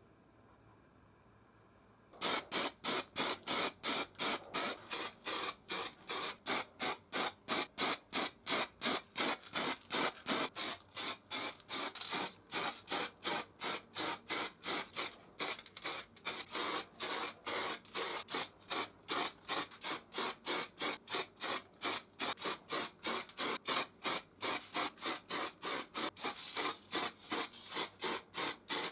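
Steady back-and-forth strokes of an abrasive being worked by hand against steel, about three a second, starting about two seconds in.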